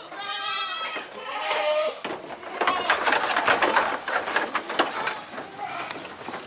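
Goats bleating, a wavering call in the first second and another shortly after, then a dense rustling and crunching of hungry goats pulling at fresh leafy fodder, fading near the end.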